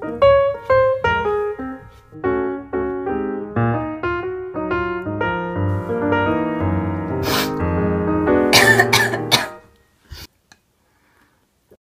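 Background piano music with a quick run of notes that stops about ten seconds in. Near the end of the music there are a few sharp coughs, typical of someone choking on a mouthful of raw onion.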